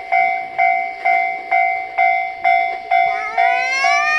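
Japanese railway level-crossing warning bell ringing its steady 'kan-kan' strokes, about two a second. About three seconds in, a rising whine joins it.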